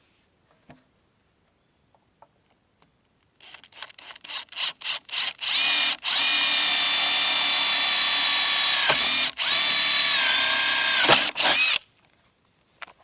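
Electric drill boring into bamboo. The trigger is blipped in quickening short bursts, then the drill runs at a steady high whine for about six seconds, with brief stops and pitch sags as the bit loads up, before cutting off.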